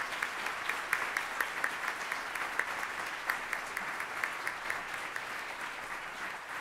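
Audience applauding: a steady round of clapping from many people.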